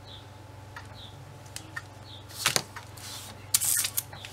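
Clear plastic bag crinkling as the plastic model-kit sprue inside it is handled, in two short bursts about two and a half and three and a half seconds in, with a few light clicks, over a low steady hum.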